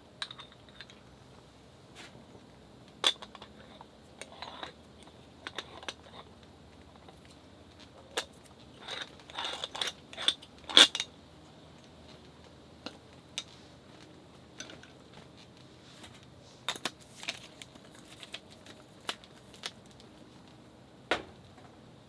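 Camp cookware and utensils being handled: scattered light clinks, taps and knocks of dishes and metal, with a busier run of clinks about halfway through.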